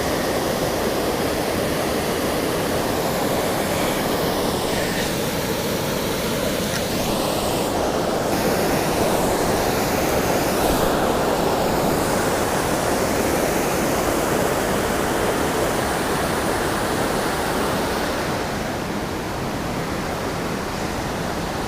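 Waterfall on a small creek, a steady rush of falling water that eases a little near the end.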